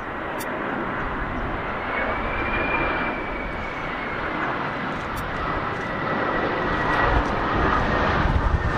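Airbus A319 jet airliner on final approach: a steady rushing engine noise with a thin high whine that rises slightly about two seconds in and then slowly falls, growing louder near the end as the aircraft comes closer.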